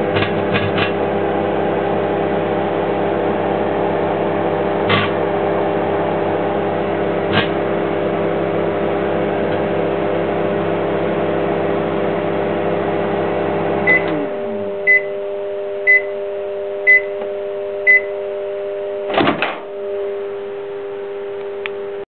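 Microwave oven running with a steady hum, broken by a few sharp pops. About 14 seconds in it shuts off and its hum winds down in pitch, then five short end-of-cycle beeps sound a second apart, followed by a click.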